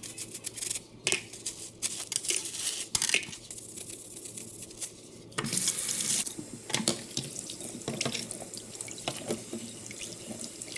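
Water running from a tap into a sink while things are washed, with short knocks and scrapes; the flow gets louder about five seconds in.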